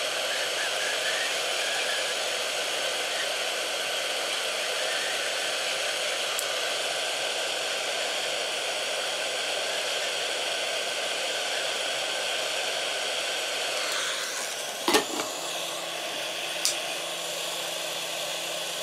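Hot-air gun of a Yihua 878AD rework station blowing steadily, shrinking heat-shrink tubing over a soldered wire splice. About 15 seconds in it is set down in its holder with a sharp clack. After that a quieter blowing with a steady low hum continues.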